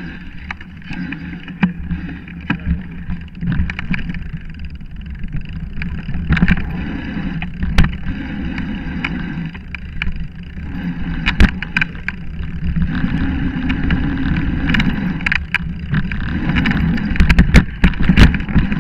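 Mountain bike rolling fast downhill over a rough, leaf-covered dirt trail, heard from a camera mounted on the bike: a continuous rumble of tyres on the ground with many sharp knocks and rattles as the bike hits bumps, most of them near the end.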